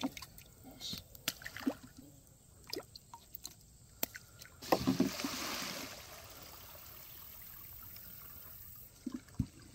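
Water sloshing and splashing in a plastic cooler as bluegill are grabbed out of it by hand and dropped into a pond, with the loudest splash and a rush of water about five seconds in. Near the end come a few knocks as the cooler lid is shut.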